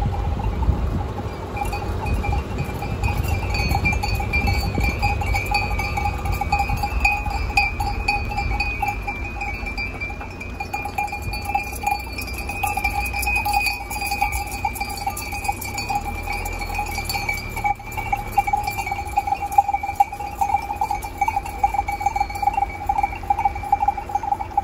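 Bells on a walking flock of sheep jangling together in a continuous clanking chime, over a low rumble that is strongest in the first few seconds.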